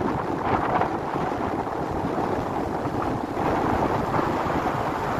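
Gusty wind buffeting the microphone, over the wash of sea surf.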